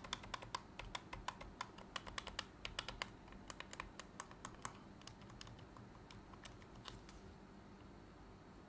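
Buttons of a freshly reassembled PS5 DualSense controller pressed one after another in a button test, a quick run of light clicks that thins out after about five seconds.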